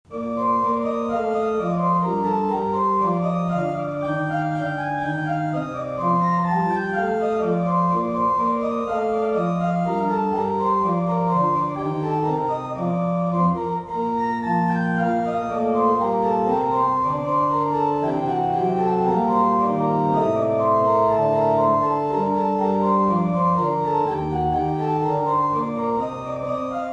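Organ music: slow, sustained chords over a low held bass line, starting to fade near the end.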